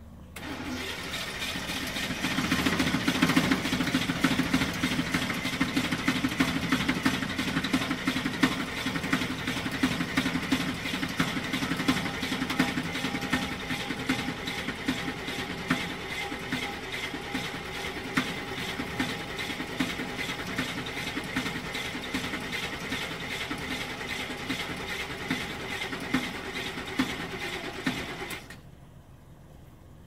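GMC truck engine cranking on its starter for about 28 seconds without catching, then cut off suddenly: the engine won't start.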